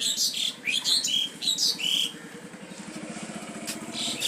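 Small birds chirping in quick short calls, then a low engine hum comes up in the second half.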